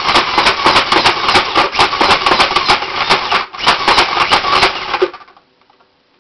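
Modified Nerf Vulcan blaster firing in fast automatic bursts: a loud, rapid mechanical clatter of clicks that breaks off briefly about three and a half seconds in, starts again, and stops about five seconds in.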